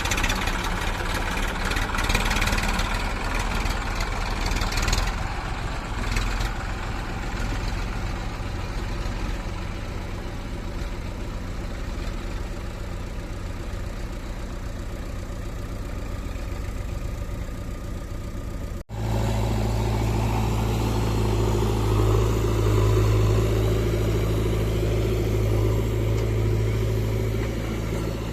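Heavy diesel machinery running, with clattering over the engine in the first few seconds. A little past halfway the sound cuts abruptly to a louder, steadier engine with a deep hum.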